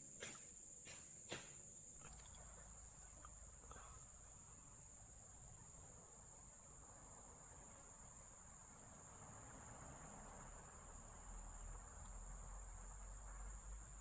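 Near silence with a faint, steady high-pitched drone, and a couple of faint clicks in the first two seconds.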